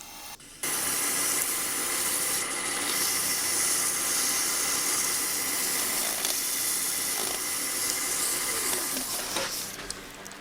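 Abrasive paper sanding an iroko workpiece as it spins on a wood lathe, working through the grits up to 400: a loud, steady hiss with a steady high whine under it. It starts suddenly just under a second in and eases off near the end.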